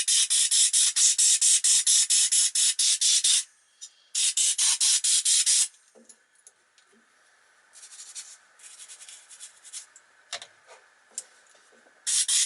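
Toothbrush bristles scrubbing fast over a vacuum-cleaner motor's copper windings to loosen caked dirt, a rapid rasping at about seven strokes a second. It runs in two long spells, then lighter scrubbing, then a short final burst.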